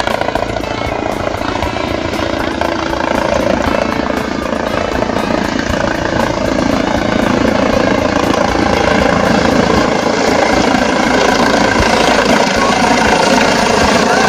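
Helicopter rotor and turbine noise as it flies low overhead, growing gradually louder toward the end.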